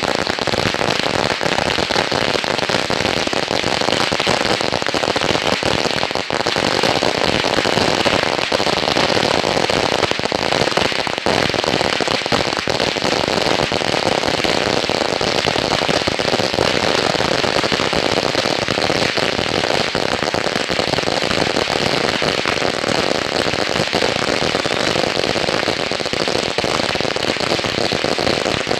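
A long string of firecrackers going off, a continuous rapid rattle of bangs so close together that they merge into one steady crackle.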